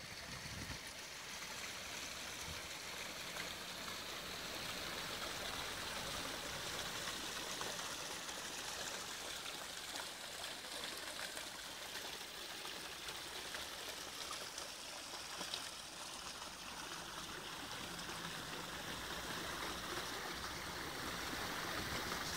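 Artificial waterfall running: a steady splashing rush of falling water.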